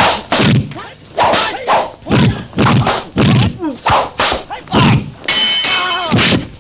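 Kung-fu fight sound effects: a quick run of punch and strike impacts with swishes, about two a second, with a fighter's cry near the end.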